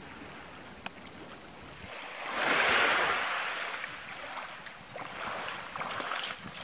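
Small sea waves washing over a pebble shore, with one louder surge of hiss about two seconds in. Light splashes from feet wading in the shallows near the end.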